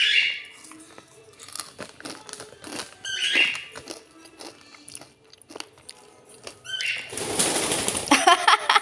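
Pet bird crunching and nibbling pieces of fried snack mixture in a run of small clicks, with a short chirp near the start, another about three seconds in and a third near seven seconds. A louder, harsh sound follows near the end.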